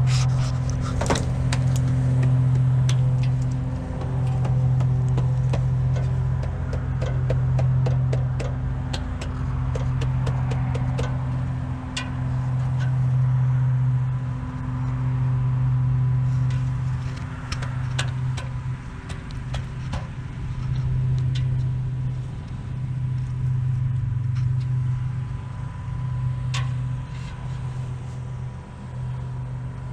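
Motor-driven dryer vent cleaning equipment running in the vent: a steady low motor hum that comes in spurts of about two seconds with short dips between them, mixed with scattered knocks and rattles of debris in the duct.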